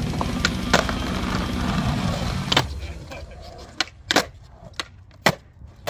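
Skateboard wheels rumbling steadily over concrete. After about three seconds the rumble drops away and a handful of sharp clacks follow as the board hits and slides on the concrete ledge.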